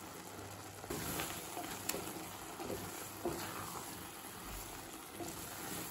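A spatula stirring and lifting vegetable Maggi noodles in a cooking pan, with faint scraping and a few light knocks against the pan, starting about a second in, over a low simmer.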